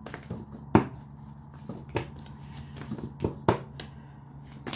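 A few sharp taps and clicks, about four of them, two close together near the end, over a faint steady hum.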